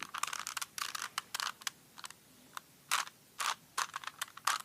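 Rubik's cube being twisted by hand: irregular plastic clicks and rattles as its layers turn, with a short pause about two seconds in.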